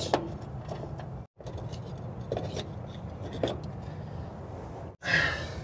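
Light clicks and taps of hand tools on small metal parts as a voltage regulator is unbolted from a truck's firewall, over a steady low hum.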